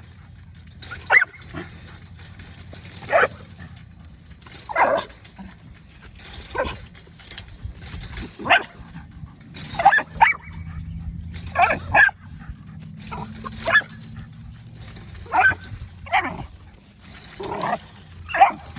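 A dog barking in short single barks, about one every second or two, some coming in quick pairs.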